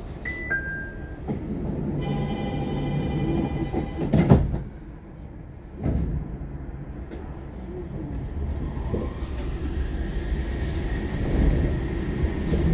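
Nippori-Toneri Liner rubber-tyred automated train at a platform: a short chime, then a buzzing door-warning tone for about two seconds. The sliding doors shut with a thud about four seconds in, with another thump near six seconds. Running noise then builds steadily as the train pulls away.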